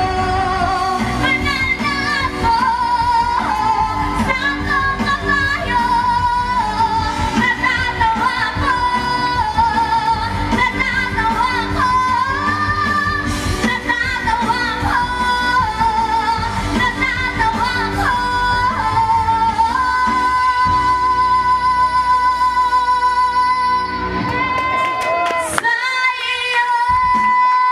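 A woman singing into a handheld microphone over instrumental backing music. About twenty seconds in she holds one long high note, and near the end the backing drops away briefly under her voice.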